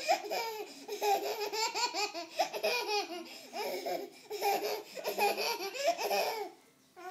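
A baby laughing in repeated high-pitched bursts of giggles, which stop about six and a half seconds in.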